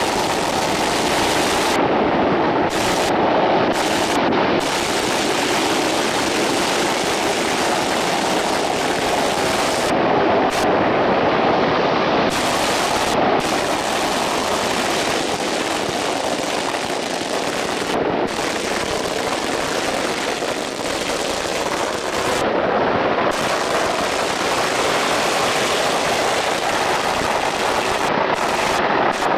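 Strings of firecrackers going off in a dense, unbroken rapid-fire crackle of bangs.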